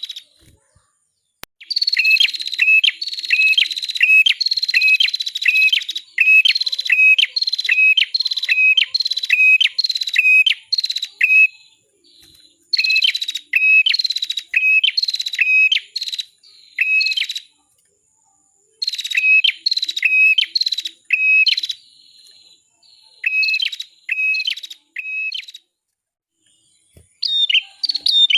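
Prenjak (prinia), the 'cimblek kepala merah' type, singing: long runs of rapid, repeated high chirps, about two or three a second, broken by short pauses of a second or two.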